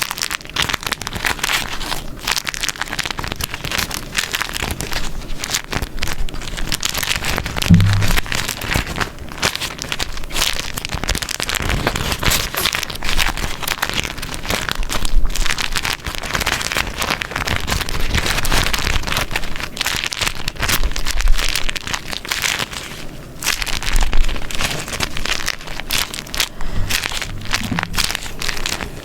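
Beeswax food wrap being crumpled and folded by hand: dense, continuous crinkling and crackling with a sticky, papery texture, rising and falling as the wrap is handled.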